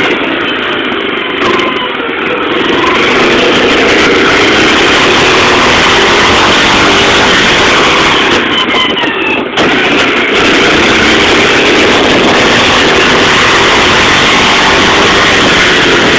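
Honda FourTrax 300 ATV's single-cylinder four-stroke engine running under way, loud and steady, with a brief dip in level about nine and a half seconds in.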